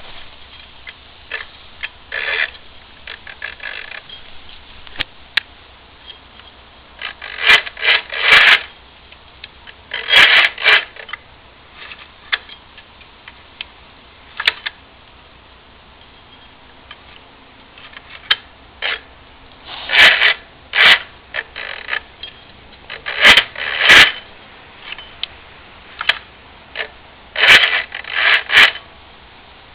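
Yamaha Aerox scooter making irregular scraping, creaking noises that come in short clusters of two or three every few seconds, with single clicks in between.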